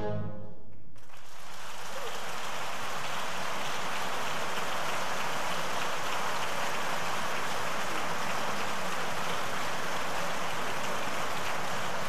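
The orchestra's final chord dies away within the first second, then an audience applauds, a dense steady clapping that runs on.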